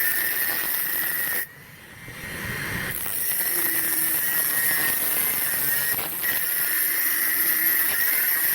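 Homemade angle grinder's 775 DC motor running with a steady high whine and hiss. It drops away suddenly about one and a half seconds in, then spins back up over about a second and runs steadily again.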